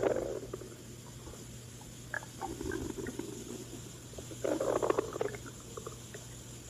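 Human stomach growling: irregular gurgling rumbles in three bursts, at the start, about two and a half seconds in and about four and a half seconds in, with small wet clicks, over a steady low hum.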